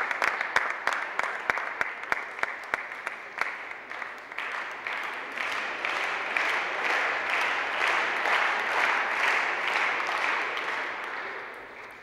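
Audience applauding: sharp separate claps at first, thickening into fuller applause about four seconds in, then fading toward the end.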